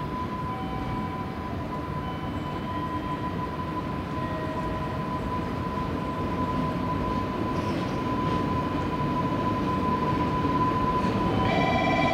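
EH500 electric locomotive hauling a container freight train over the points, its rumble growing steadily louder as it approaches, with a few short high-pitched wheel squeals in the first few seconds. Near the end a steady sound of several tones sets in.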